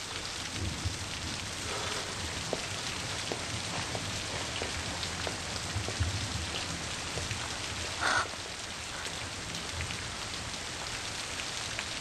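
Steady rain falling, with scattered drop splashes and one short louder sound about eight seconds in.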